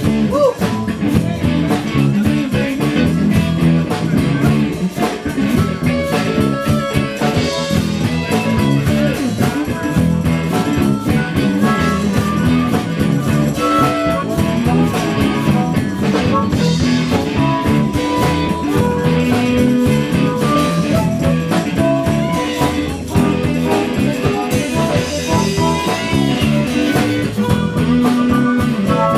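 Live blues-rock band playing an instrumental passage with no vocals: electric guitar, bass and drum kit, with held melody notes from a harmonica cupped in the player's hands.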